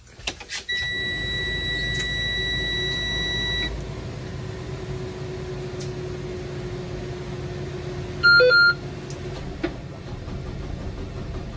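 School bus dashboard warning buzzer sounding one steady high tone for about three seconds as the ignition is switched on, over a low steady hum. A second, shorter and louder beep at a lower pitch comes about eight seconds in, before the engine is started.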